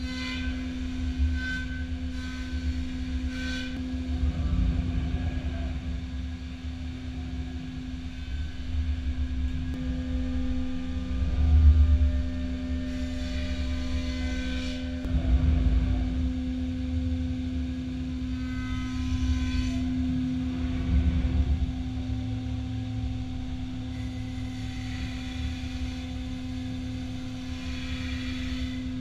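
5-axis CNC router spindle running and cutting a wooden workpiece: a steady hum over a low rumble, with several louder passes of high-pitched cutting whine as the cutter bites into the wood.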